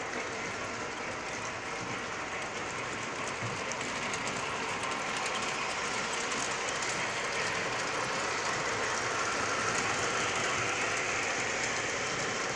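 O scale model trains running on the layout's track: a steady metallic rattle and clatter of wheels and gearing, getting a little louder after the middle as a locomotive passes close.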